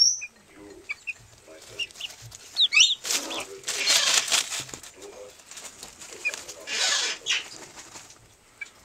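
Chickens dust-bathing in their feed, with two rushes of wing-flapping and feather-shaking, a long one about three seconds in and a shorter one near seven seconds. Soft clucking and a few short high chirps come in between.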